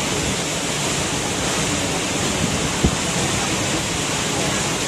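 Waterfall pouring: a steady, even rush of falling water. A single brief knock sounds about three seconds in.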